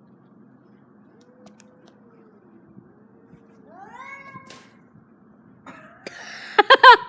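Cats meowing and yowling at each other in a standoff before a fight. A low, wavering moan is followed by a rising call about four seconds in, then the loudest call, a pulsing yowl, near the end.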